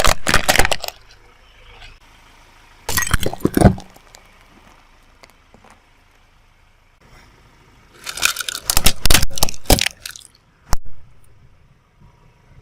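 Brittle objects cracking and crunching as a car tyre rolls over them, in three bursts of crackle with a single sharp snap between the last burst and the end.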